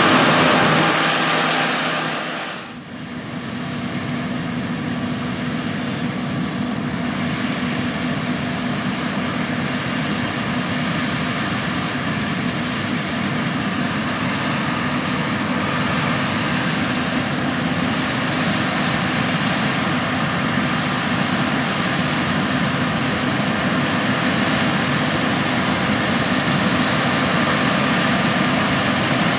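John Deere S Series combine harvesting wheat: the diesel engine and threshing machinery running steadily, with a brief dip in level about three seconds in.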